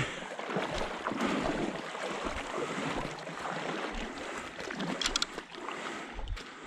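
Low steady hiss of moving water, with a few small sharp clicks about five seconds in.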